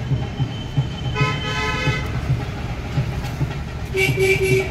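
Vehicle horns sound twice: a longer toot about a second in and a short one near the end. Under them runs a steady low rumble that pulses a few times a second.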